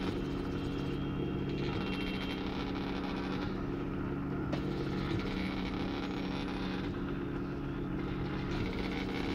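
A homemade RepStrap 3D printer running a print: a steady hum from the machine's motors and the extruder's cooling fan, with higher whining tones that come and go every couple of seconds as the print head moves.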